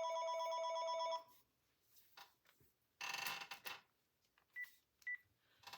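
A phone ringing: one rapidly warbling ring lasting about a second at the start, followed by a shorter, rougher sound about three seconds in and two faint short beeps near the end.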